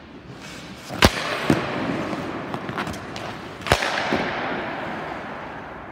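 Two hockey shots: the stick cracking against the puck twice, about two and a half seconds apart, each crack echoing and fading slowly through the indoor rink. Several lighter clacks of pucks striking follow each shot.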